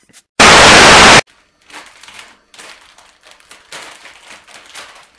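A loud burst of hiss like static, about a second in and lasting just under a second, with sharp start and stop. Faint crackling and rustling follow.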